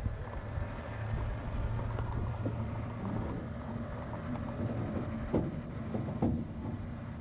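East Broad Top narrow-gauge steam train running behind locomotive No. 15: a steady rumble of the cars on the track with occasional sharp clanks, the two loudest about two-thirds of the way in.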